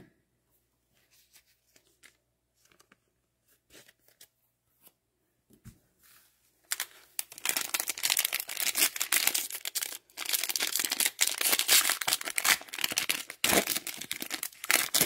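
Faint handling clicks, then from about seven seconds in a trading-card pack's wrapper being torn open and crumpled, a loud dense crinkling and tearing.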